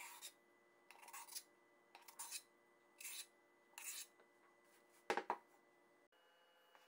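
Metal spoon scraping thick whipped cream from the inside of a stainless steel bowl, about five short scrapes roughly a second apart. About five seconds in comes a single louder metal knock.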